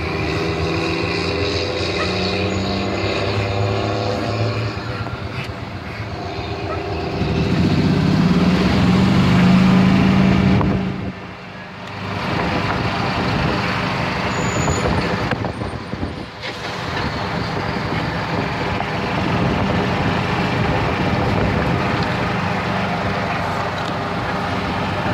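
Open golf cart riding along a road: steady wind and road noise with motor-vehicle engine sound. About seven seconds in, an engine grows louder and rises in pitch, then drops away suddenly near eleven seconds.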